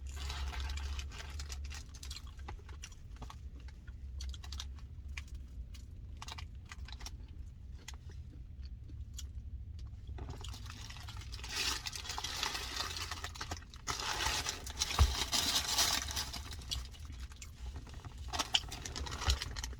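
A person chewing food close to the microphone: wet smacking and crunchy clicks over a low steady hum, growing busier and louder about halfway through.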